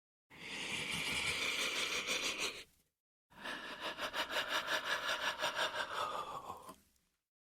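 Creepy shuddering human breaths: a steady breath of about two and a half seconds, then after a short pause a longer breath that trembles several times a second and drops in pitch as it fades out.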